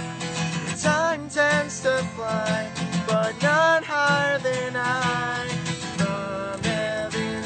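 A man singing a melody while strumming an acoustic guitar.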